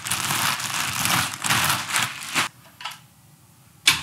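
A clear plastic bag crinkling and rustling as it is pulled off a rifle for about two and a half seconds. Then a pause, and a short sharp knock near the end.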